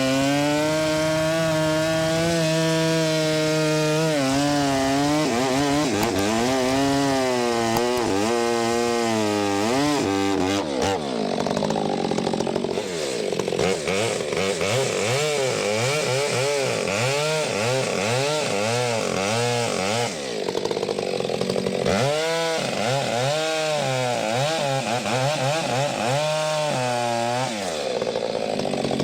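Gas chainsaw bucking firewood rounds: held at high revs under load for the first few seconds, then revving up and down repeatedly as it works through the wood.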